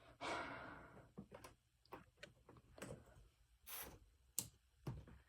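Near silence with scattered faint clicks and taps and a brief soft rustle near the start: small handling noises in a quiet room.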